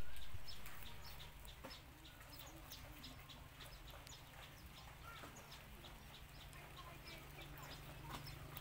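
Rabbit chewing a raw carrot, with a quick irregular series of crisp little crunches, a few each second, over a steady low hum.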